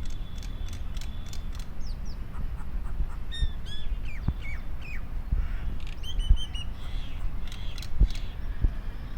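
Birds chirping, with short high calls and quick down-slurred notes that come thickest in the middle, over a steady low rumble.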